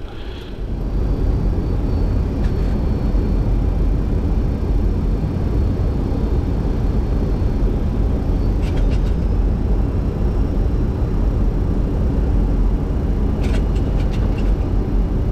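Boeing 737-200 flight deck noise: a steady, loud rumble of engines and airflow, with a few faint clicks.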